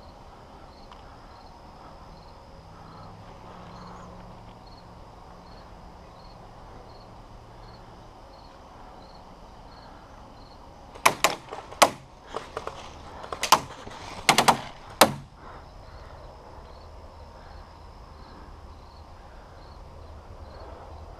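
Airsoft gunfire: a ragged string of about half a dozen sharp cracks over some four seconds, about halfway through, over a faint steady pulsing insect buzz.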